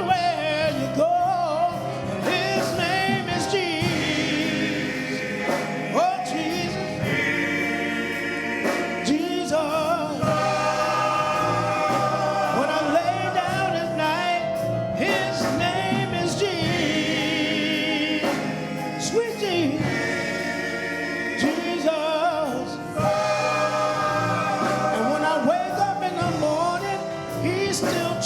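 Gospel music: a choir singing with instrumental accompaniment, voices held in long notes with vibrato.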